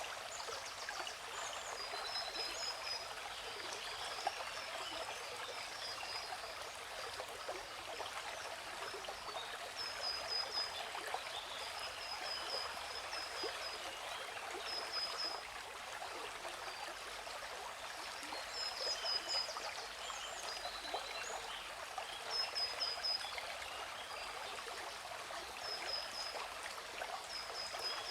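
Steady rush of falling water, with birds chirping over it: short high runs of quick repeated chirps every few seconds.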